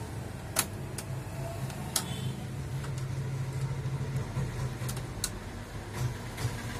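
National G33 four-head VCR running its tape transport: a steady low mechanical hum with several sharp clicks as its front-panel buttons are pressed and the mechanism shifts.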